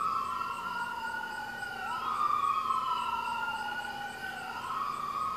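Emergency vehicle sirens wailing. Two slow rising-and-falling tones cross each other, one climbing while the other falls.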